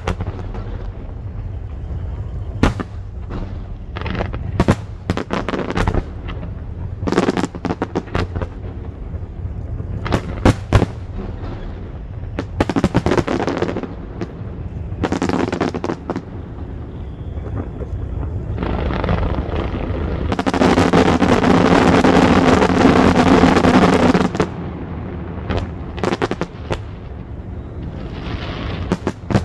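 Aerial fireworks bursting: many sharp bangs at irregular intervals, with a dense, louder stretch of continuous noise about two-thirds of the way through.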